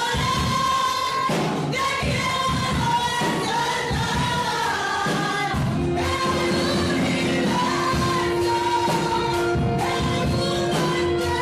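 A worship song: a voice singing over instrumental accompaniment, with a steady held note sounding underneath in the second half.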